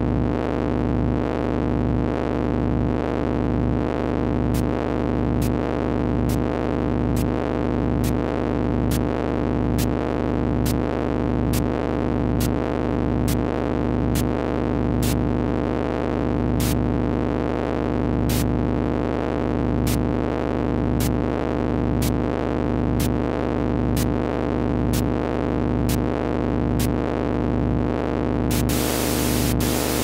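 Eurorack modular synthesizer patch put through the Burbulgulator used as a comparator: a steady drone of several tones pulsing a little more than once a second. From about four seconds in, sharp clicks come at the same rate, and a hiss of noise joins near the end.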